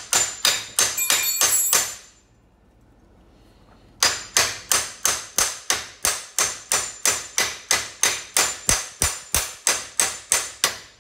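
Hammer striking a broken steel wheel stud in a wheel hub to drive it out the back of the hub, with ringing metallic blows. A quick run of blows comes first, then about two seconds' pause, then a steady string of about three blows a second.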